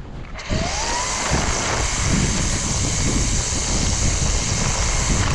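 String trimmer throttled up about half a second in, its pitch rising as it spins up, then running steadily at speed as the line trims grass along a curb.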